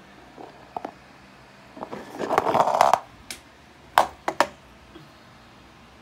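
Handling noise from a handheld meter being moved about: a scraping rub for about a second, starting about two seconds in, then a few sharp taps about four seconds in.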